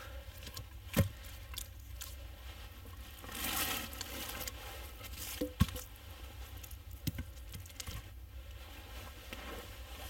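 Wood and branches being handled during camp building. There are sharp knocks about a second in, twice in quick succession around five and a half seconds, and once near seven seconds. A rustling scrape comes at about three and a half seconds.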